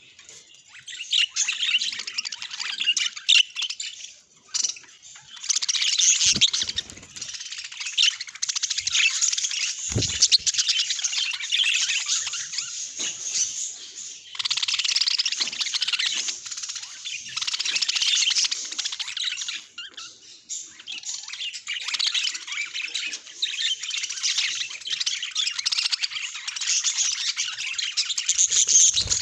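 Budgerigars chattering and chirping, a dense, continuous warble of quick twittering notes with occasional squawks and a few brief lulls.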